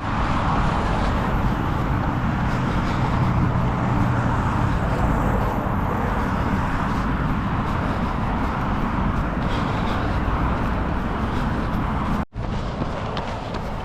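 Steady outdoor rushing noise, with a short break about twelve seconds in.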